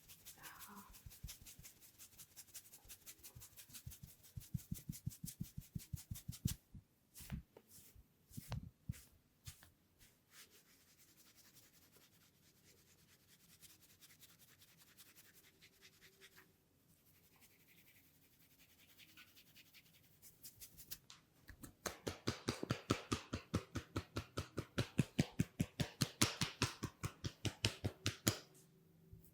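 A masseur's hands tapping rapidly and rhythmically on the head and neck in a massage, about five strokes a second. The strokes thin out in the middle and grow louder and denser for the last several seconds.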